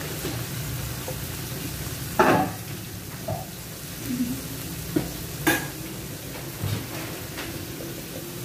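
Chopped ginger, garlic and onion frying in soy sauce in a nonstick pan, a steady sizzle, stirred with a plastic spatula. Two or three sharp knocks, the loudest about two seconds in and another about five and a half seconds in, as the spatula hits the pan.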